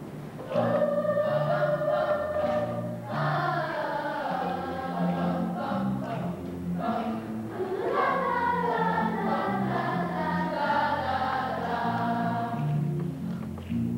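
Children's choir singing over an instrumental accompaniment with a stepping bass line. The voices come in about half a second in, with a rising swoop on one phrase near the middle.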